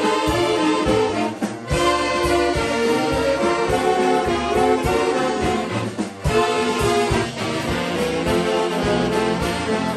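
Mummers string band playing live: a section of alto, tenor and baritone saxophones over a drum kit, with accordions and banjos, in an upbeat Christmas tune. The band drops out for two short breaks, about a second and a half in and around six seconds.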